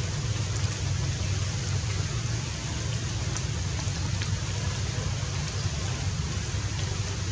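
Steady outdoor noise: an even hiss with a low rumble underneath and a few faint ticks.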